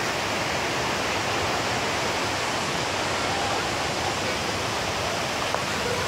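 A waterfall rushing steadily.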